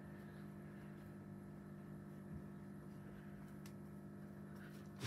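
Quiet room tone: a low, steady electrical hum with a couple of faint ticks.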